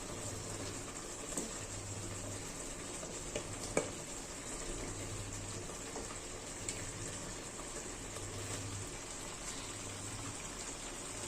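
Beef patties cooking in a pan: a steady hiss, with a few light clicks.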